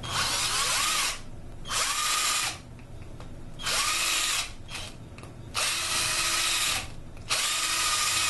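Handheld power tool run in five bursts of about a second each with short pauses, a loud hiss with a steady whine, while working on bolts of an engine's exposed cylinder head and rocker arm assembly.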